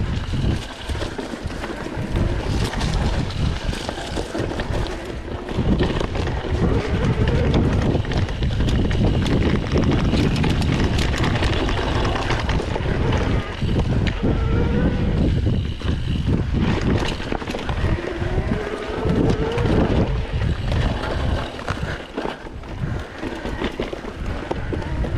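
Wind buffeting the microphone of a mountain bike ride camera, with the bike rattling and knocking over rough trail throughout.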